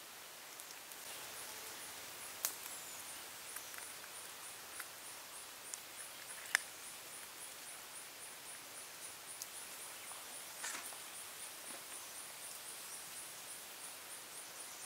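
A high insect chirp pulsing about four times a second, with soft scrapes and sharp clicks of a knife and hands working raw fish on a wooden board; the loudest clicks come about two and a half and six and a half seconds in.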